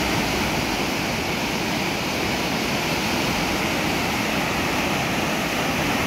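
Steady rushing of the Budhi Gandaki river in flood: fast, swollen, muddy water churning over rapids in one continuous, unbroken roar of water noise.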